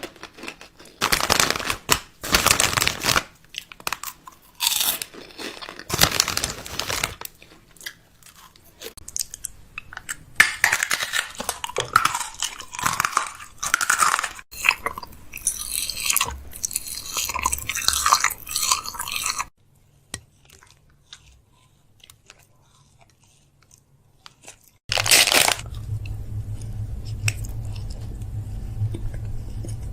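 Crunchy snacks being bitten and chewed close to the microphone, in a long run of loud, irregular crunches. Near the end the crunching gives way to a quieter steady hum with faint scraping.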